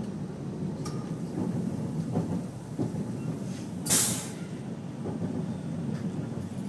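Steady running rumble of a train on the rails, heard inside the driver's cab, with a few light clicks and one short, sharp hiss about four seconds in.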